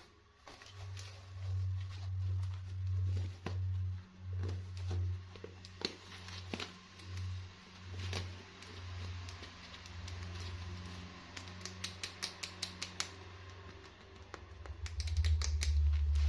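Small plastic pieces being handled and unpacked: scattered clicks and taps, in quick runs near the middle and the end, over a low rumble of handling noise.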